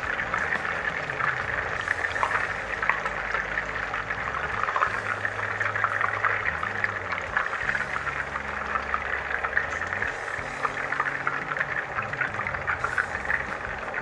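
Chicken pieces frying in a pot of hot oil: steady sizzling with dense, fine crackling.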